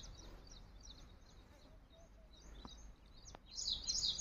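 Small birds chirping in quick, high notes, thinning out in the middle and busier again in the last second, with a couple of faint clicks.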